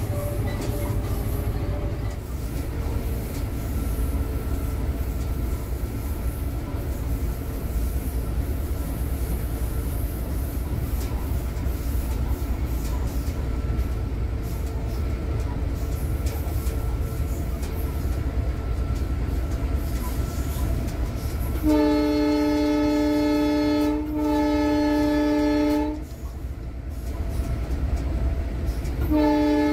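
Inside the cab of an EMD WDP4 (GT46PAC) diesel-electric locomotive running at speed: its 16-cylinder 710 diesel engine and running gear make a steady low rumble. About two-thirds of the way in, the locomotive's horn sounds two long blasts back to back, and a third blast begins at the very end.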